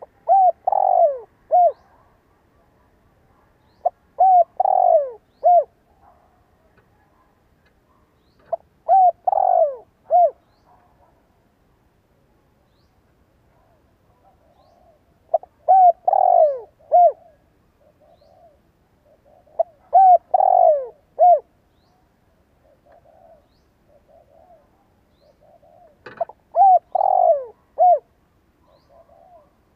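Decoy spotted dove cooing: six loud three-note phrases a few seconds apart, the middle note longer and falling in pitch, with fainter coos between them.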